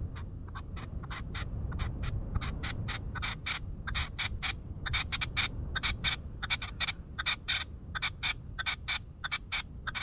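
Red-legged partridge giving its rhythmic call: a long run of short, harsh notes, several a second in uneven groups, over a low steady rumble.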